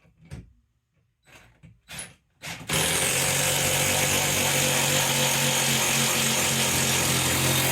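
A few light knocks as a lag screw is set in place, then, about three seconds in, a power drill with a socket runs steadily at one pitch, driving the lag screw through the TV mount's wall bracket into the wall.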